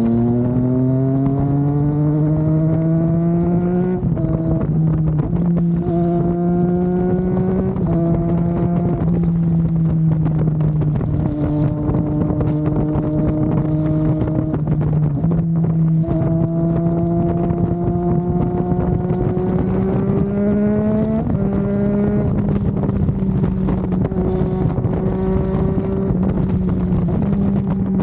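Triumph Daytona 660's inline three-cylinder engine pulling under way, its pitch climbing at the start, then holding fairly steady with several short drops as it changes gear, and climbing again before a drop about 21 seconds in. Wind noise on the microphone runs underneath.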